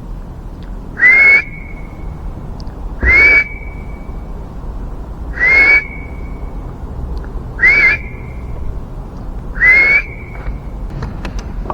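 Five short, loud whistled calls, each sliding quickly upward and holding briefly, spaced about two seconds apart.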